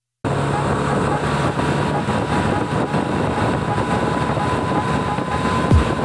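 Steady wind rush over the microphone with a low engine hum, from a motorcycle riding at highway speed.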